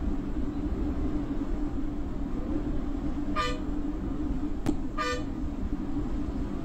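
Steady drone of a bus's engine and road noise heard inside the cab, with two short horn blasts about a second and a half apart near the middle and a single click between them.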